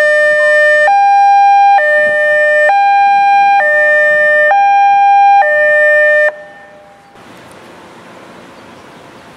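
A fire service car's two-tone siren alternates a lower and a higher tone, each held just under a second, seven tones in all, then stops about six seconds in. It is sounded as part of a test of the vehicle's warning signals.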